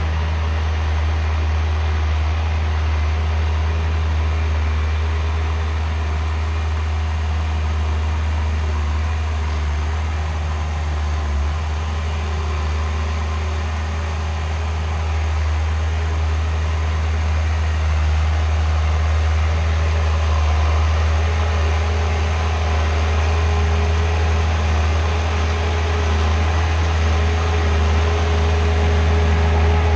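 Skid steer engine running steadily with a strong low drone, getting slightly louder near the end.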